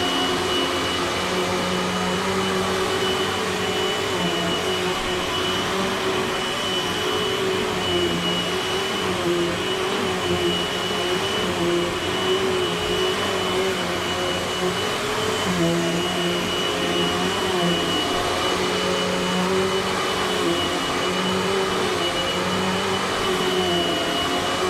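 Eureka Airspeed upright vacuum cleaner running steadily while sucking shredded paper off a carpet: a constant rushing of air over the motor's hum, whose pitch wavers slightly, with a thin steady high whine above it.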